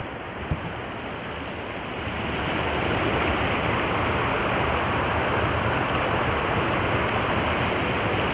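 Creek water running over rocks: a steady rushing that grows louder about two seconds in and then holds. Two small knocks near the start.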